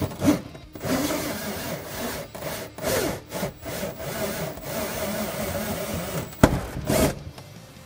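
Cordless drill driving a 1¼-inch hole saw through the plastic firewall panel: a rough sawing, grinding sound that swells and eases with short pauses as the saw bites. A sharp click stands out about six and a half seconds in.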